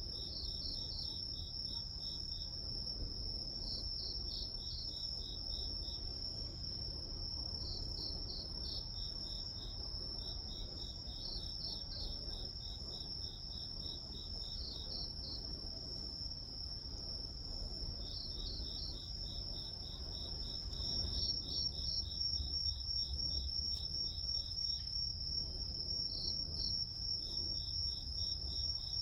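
A chorus of grass insects such as crickets. One insect holds a steady, high-pitched trill throughout, while another chirps in runs of rapid pulses that stop and start every few seconds. A faint low rumble sits underneath.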